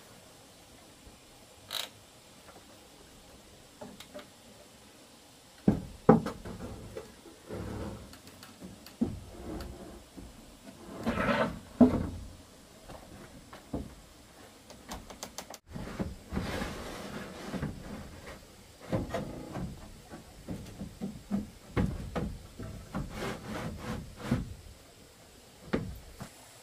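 Corrugated roofing sheet being handled and laid on a wooden roof frame: irregular knocks, clatter and scraping of the sheet against the poles and other sheets, starting about six seconds in and going on in bursts until near the end.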